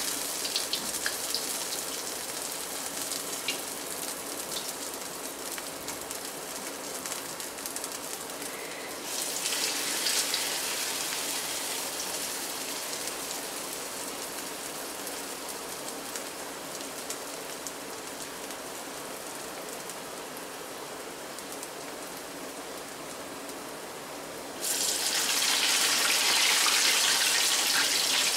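Minapa vadas (urad dal fritters) deep-frying in hot oil in a kadai: a steady crackling sizzle. It jumps louder twice, about nine seconds in and again a few seconds before the end, as fresh vadas go into the oil.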